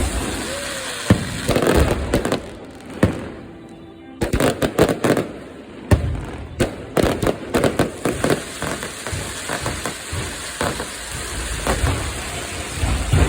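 Fireworks going off: a few separate bangs, then from about four seconds in a dense run of rapid sharp cracks and bangs that gradually thins out.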